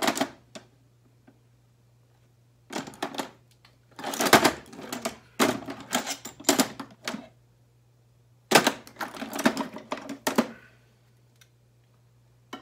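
Pliers and other metal hand tools clinking and clattering in a crowded tool chest drawer as they are rummaged through by hand. The rattling comes in several spells of a second or two, with short pauses between.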